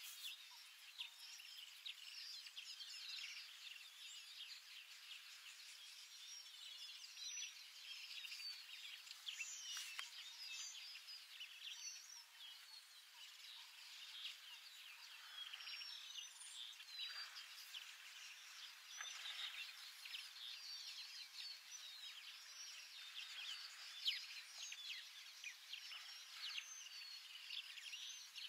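Faint natural bush ambience: many small bird chirps and calls, quick and scattered, over a soft hiss, with an occasional sharper tick.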